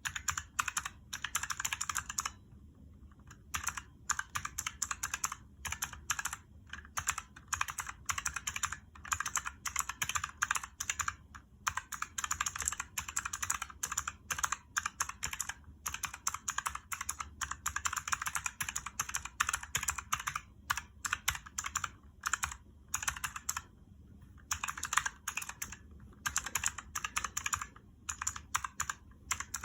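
Typing on a Razer keyboard with purple optical clicky switches: fast runs of sharp keystroke clicks broken by short pauses of about a second.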